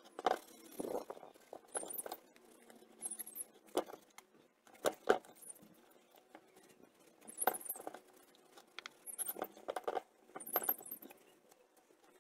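A scouring pad and cloth rag being scrubbed and wiped over the dirty metal casing of a Honda P50 moped engine. The sound comes in irregular bursts of scratchy rubbing with a few sharp clicks and knocks.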